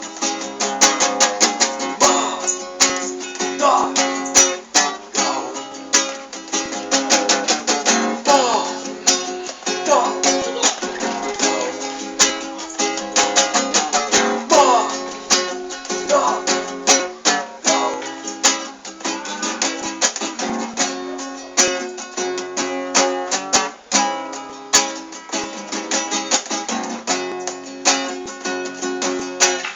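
Instrumental break of a song: plucked and strummed string instruments playing a quick, steady rhythm, with no singing.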